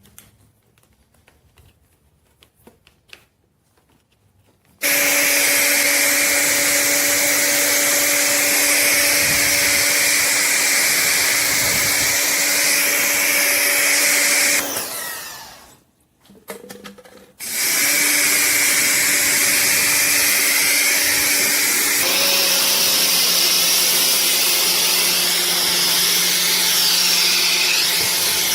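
Electric pressure washer running: the motor-pump's steady hum under a loud spray hiss. It starts abruptly about five seconds in, winds down about ten seconds later, and starts again a few seconds after that and runs on.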